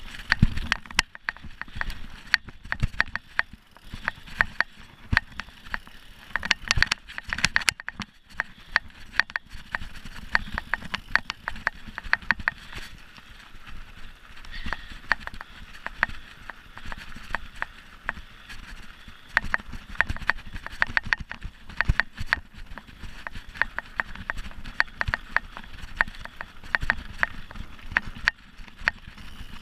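Mountain bike rattling over rough dirt trail at speed: a constant stream of sharp clicks and knocks from the bike's chain, frame and parts, over a hiss of tyre and wind noise. The knocking thins out for a few seconds on a smoother gravel stretch partway through.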